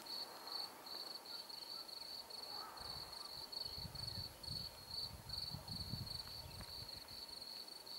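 Cricket chirping: a steady, even run of short high chirps. A low rumbling noise comes in about three seconds in and fades out near the end.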